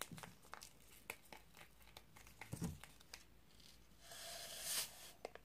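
Faint crinkling and small clicks of an instant coffee-mix packet being handled and torn open. About four seconds in comes a short hiss of the sugary coffee powder pouring into a glass.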